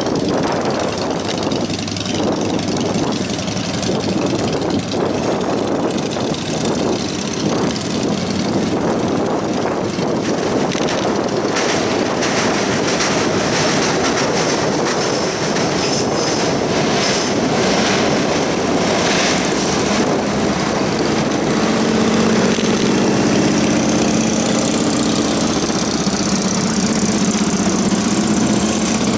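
Steady wind and road noise from riding a bicycle, with a motorcycle engine running nearby whose steady hum comes through clearly from about twenty seconds in.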